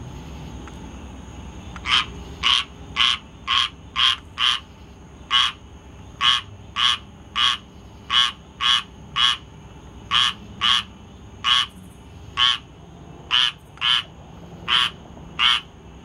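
Squirrel tree frog calling: a run of about twenty short, raspy notes, roughly two a second with brief pauses, starting about two seconds in.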